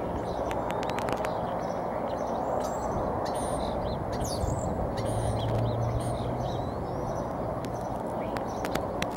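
Steady outdoor background noise, with faint high bird chirps and scattered small clicks throughout. A low hum comes in briefly about five seconds in.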